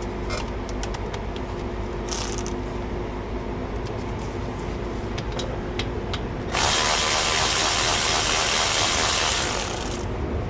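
Milwaukee cordless impact wrench hammering for about three seconds on the front brake caliper's bolts of a Mercedes, starting suddenly past the middle and stopping sharply. Light clicks and taps of tool handling come before it.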